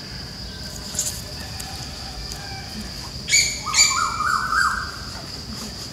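A steady high-pitched insect drone, with bird calls a little past halfway: two sharp high calls, then a quick run of rising notes.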